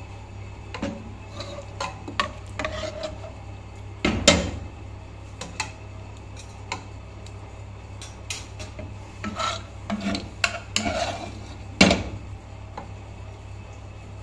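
Metal ladle scraping and clinking against a pot as chicken curry is scooped out and spooned over rice, with scattered sharper knocks, the loudest about four seconds in and again near the end.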